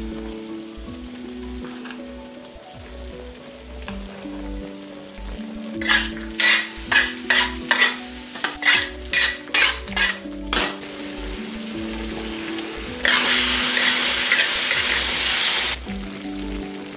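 Beef and chilies stir-frying in a large wok: a metal spatula scrapes and knocks against the wok about a dozen times in a quick run midway, over a light sizzle. Near the end comes a loud burst of sizzling that lasts about three seconds and cuts off suddenly, with gentle background music playing throughout.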